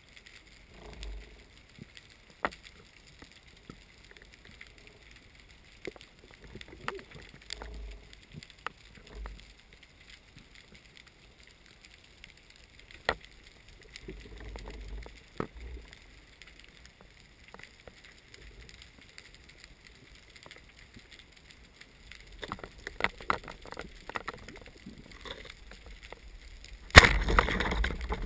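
Underwater sound during a spearfishing dive: scattered sharp clicks and soft low rumbles of water movement over a faint steady hiss. Near the end comes a loud rush of noise with a run of knocks.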